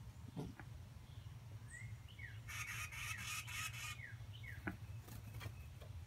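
Small songbird giving short, quick falling chirps, with a rapid rattling burst lasting about a second in the middle, over a faint steady low hum.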